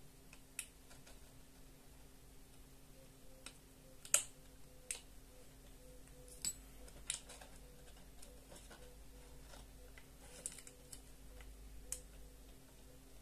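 Scattered small clicks and taps of thin wire and a clear plastic jar being handled, the loudest about four seconds in, over a faint steady hum.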